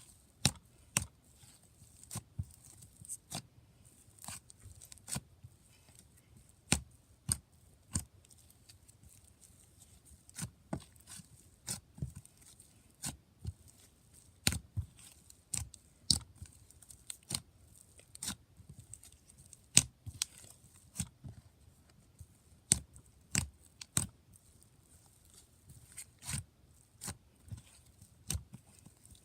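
Slime being squeezed and poked, giving sharp, irregular clicking pops, about one to two a second.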